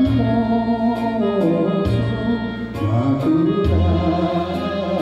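A Japanese popular song from the 1930s: a singing voice carries the melody over an instrumental accompaniment with a steady bass and light beats.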